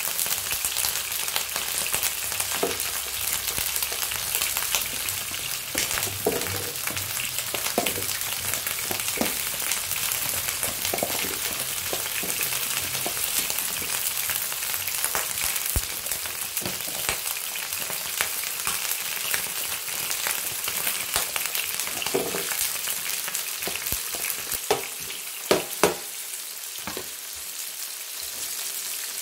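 Prawns, onion and carrots sizzling in hot oil in an electric skillet: a steady frying hiss broken by scattered sharp clicks and knocks, two louder ones near the end.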